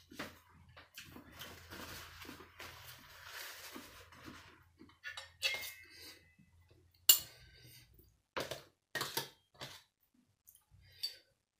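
Metal spoon and fork scraping and clinking against a large stainless steel tray, with a series of sharp clinks in the second half, the loudest about seven seconds in.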